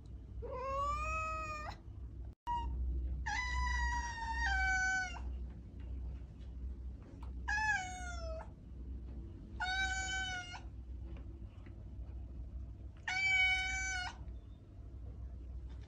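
Domestic cat meowing repeatedly: five long, high meows with pauses between them, over a steady low hum.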